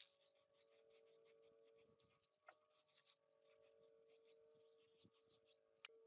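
Aerosol spray-paint can hissing faintly in quick short bursts, several a second, as yellow paint is sprayed onto chainsaw parts, over a steady low hum. Two sharp clicks, about two and a half seconds in and near the end.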